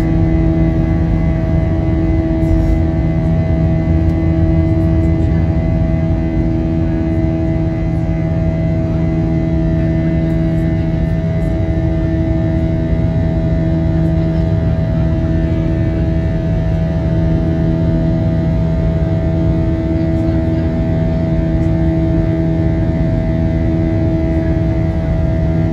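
Cabin noise of an Airbus A320-200 climbing after takeoff: the jet engines and airflow make a steady loud rush, with a droning hum of several steady tones underneath, one of which pulses slowly.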